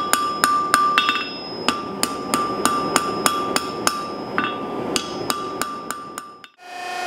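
Hand hammer striking red-hot steel round stock on an anvil, about three blows a second, the anvil ringing on between blows. It fades out near the end.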